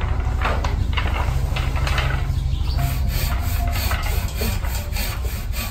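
Hand tool scraping and rasping wood in a cartwright's workshop. Towards the second half the strokes become quick and regular, about four a second, over a steady low hum.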